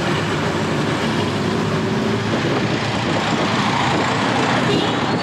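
Riding in the open back of a songthaew pickup taxi: steady engine, road and wind noise from the moving vehicle.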